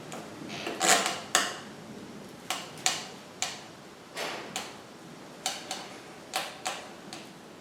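About a dozen sharp, irregular clicks and light knocks of tiling work: hard tools and stone tiles being handled and set down. The loudest comes about a second in.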